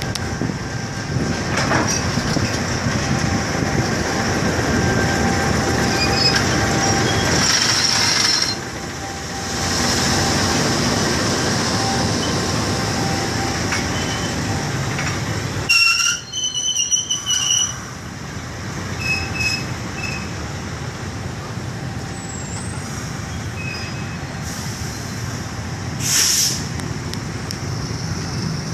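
Container wagons and a CC 201 diesel-electric locomotive (GE U18C) rolling slowly past close by while shunting, with a steady rumble of wheels on the rails. Several short, high squeals come from the wheels.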